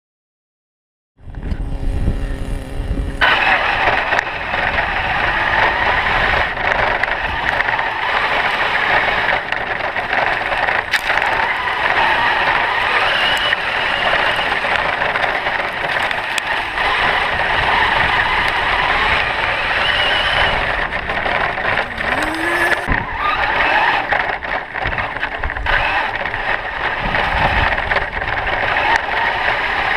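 Traxxas E-Maxx electric RC monster trucks on LiPo power driving, a steady loud running noise that starts after about a second of silence, with a couple of brief rising whines.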